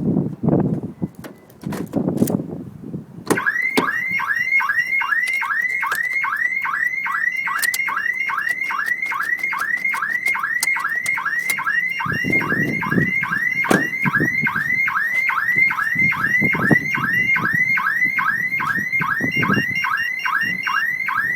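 Aftermarket car security alarm's 'Hollywood sound' siren going off, the full alarm of a triggered system: a loud, fast-repeating falling whoop, about three a second, that starts about three seconds in and keeps going. A few dull thumps come before it.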